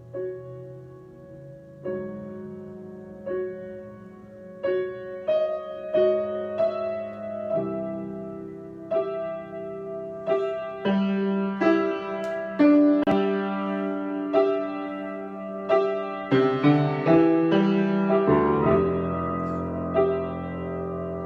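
Solo piano improvisation: notes and chords struck one after another, growing busier and louder, with a low sustained bass chord coming in near the end.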